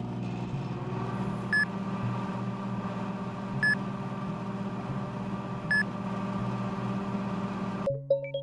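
A steady machine hum with a short beep about every two seconds, cutting off suddenly near the end.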